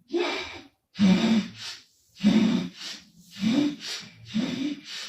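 A woman snoring: five loud snores about one a second, each a low buzz with a breathy rush of air.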